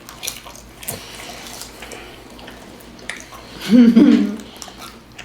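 Close-up eating sounds: small wet clicks and crunches of chewing, with a short burst of voice about four seconds in.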